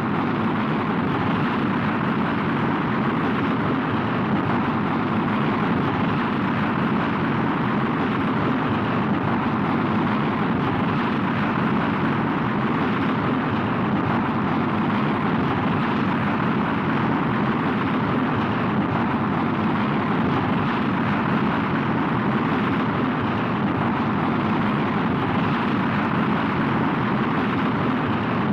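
Rocket in flight as heard from inside the cabin, a sound effect: a steady, even rumble of noise that holds at one level without change.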